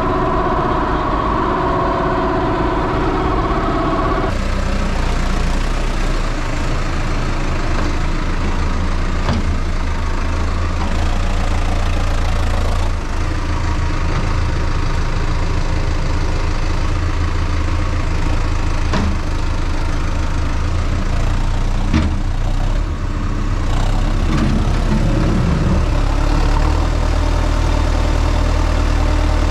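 Feed mixer wagon running under tractor PTO drive with a steady hum. After about four seconds it gives way to the steady low drone of a New Holland tractor's diesel engine working its front-loader grab bucket into a maize silage heap, with a few faint knocks.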